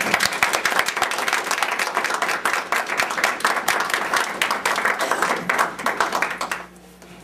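Audience applauding with dense, steady clapping that stops fairly abruptly near the end.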